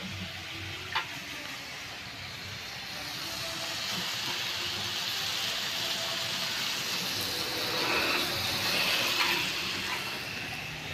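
Sliced meat and onion rings sizzling on a hot round slotted grill pan, a steady hiss that grows louder from about three seconds in. A single short click about a second in.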